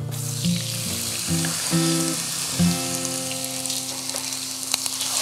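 Finely cut straw potatoes deep-frying in hot oil in an electric deep fryer, giving a steady sizzling hiss. Soft background music plays under it.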